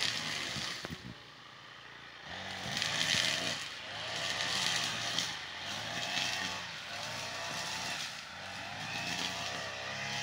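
Petrol brush cutter engine running and cutting grass, its speed rising and falling repeatedly. It eases off briefly about a second in, then revs up again.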